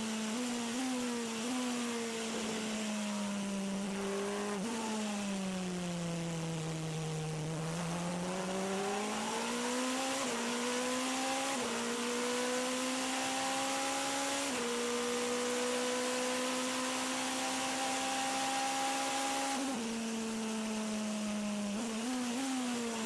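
In-car sound of the Toyota TS040 Hybrid LMP1 racing prototype's V8 engine at racing speed, with wind noise. The engine note falls as the car slows for a corner about five seconds in, climbs again as it accelerates away through several gear changes, and drops again near the end.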